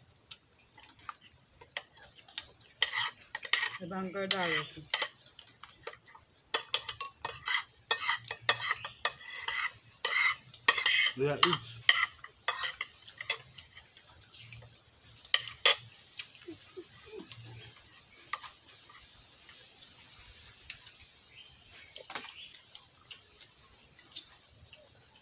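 Metal spoons scraping and clinking against a plate and a bowl in quick irregular clusters, busiest through the first half and sparser near the end. A couple of short voice sounds come in about four and eleven seconds in.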